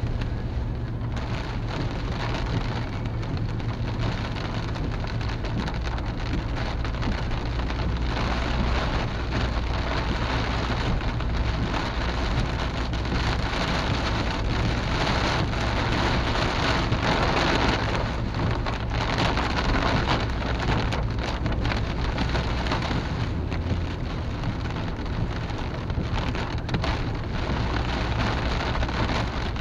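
Moderately heavy rain pattering on a car's windshield and roof, heard from inside the cabin while driving, over the low steady hum of the car on the road. The rain grows heavier about halfway through, then eases off a little.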